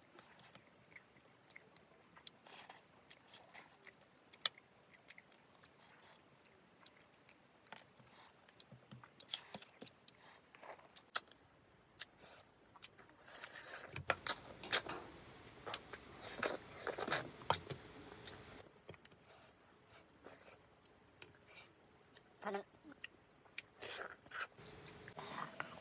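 Close-up eating sounds: fish curry and rice eaten by hand, with wet chewing, mouth clicks and lip smacks. About halfway through comes a louder, denser stretch of chewing.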